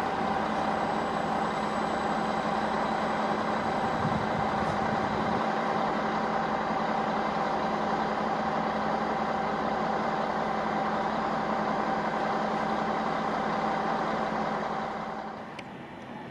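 Double-deck electric multiple unit running out of the station: a steady electric hum with a few held tones over rolling noise, dying down near the end.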